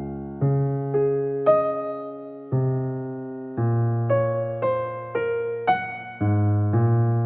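Background music: a slow electric-piano melody, each note struck and left to fade, about one or two notes a second.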